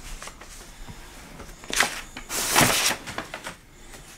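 Sheets of paper being leafed through and shuffled on a desk: light paper handling, with a short rustle and then a longer, louder one around the middle.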